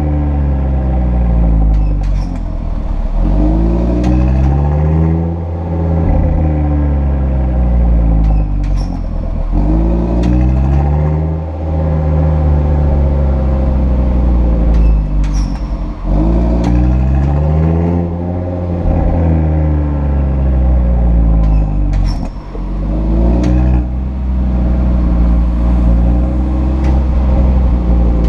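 Audi RS3 sedan's five-cylinder engine through its RS sport exhaust, rising in pitch and dropping back in repeated cycles about every six to seven seconds. Brief high squeaks recur every few seconds from the sport exhaust's flaps.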